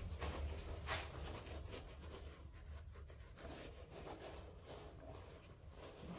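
Faint rustling and handling noises, with one sharp tap about a second in, over a steady low hum.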